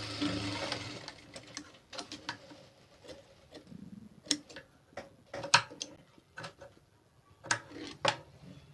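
Sewing machine running briefly and stopping within the first second, then scattered light clicks and taps of handling at the machine, the sharpest one about halfway through.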